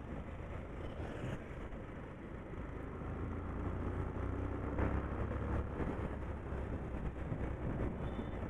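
Bajaj Pulsar 125 motorcycle running on the move, its engine heard under steady wind and road noise; the low rumble grows louder from about three seconds in.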